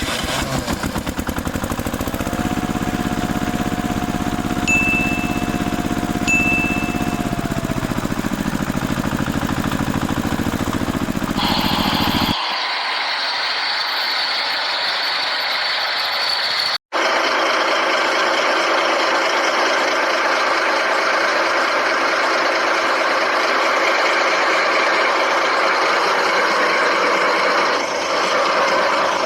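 Toy construction vehicles being played with: a fast plastic clicking and rattling with a held mid-pitched tone, and two short high beeps about five and six seconds in. After a sudden cut, a steady scraping rattle goes on with a brief dropout partway through.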